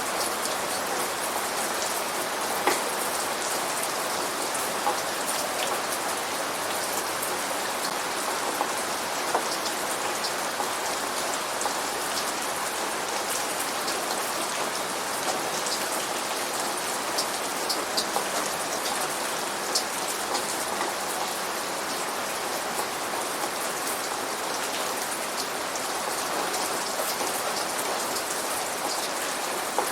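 Steady rain falling on a surface: an even hiss with scattered louder drops hitting through it.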